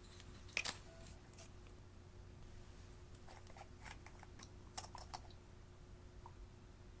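Scattered small, sharp clicks and crackles from slime being handled: one strong click just over half a second in, a few lighter ones after it, then a quicker run of clicks from about three to five seconds in.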